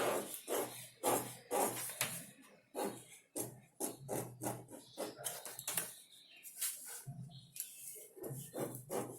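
A marking tool scratching short, irregular strokes as it draws dress-pattern lines.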